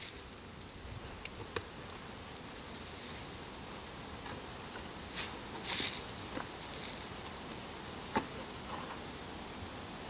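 Black hive wrap crinkling and rustling as it is folded and pressed down around the top of the hive, with two short crinkles about five and six seconds in and a few light taps.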